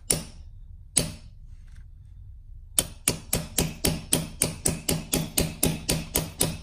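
Hammer tapping on a 14 mm socket used as a driver, seating a new pilot bearing into the end of a rotary engine's eccentric shaft. Two single taps come first, then a quick even run of about a dozen taps at roughly four a second.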